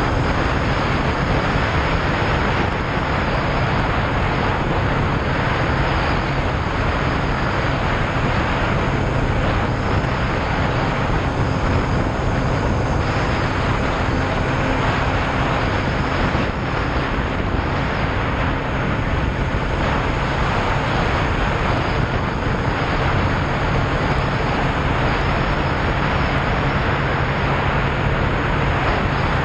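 Yamaha Fazer motorcycle riding at a steady cruise: a constant engine drone under loud wind rushing over the microphone.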